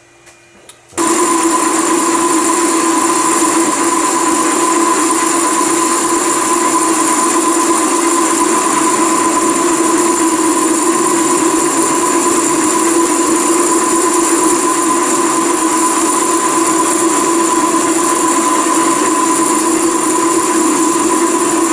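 Metal lathe starting up about a second in and then running steadily, with a constant whine from its motor and gearing over a steady mechanical hum.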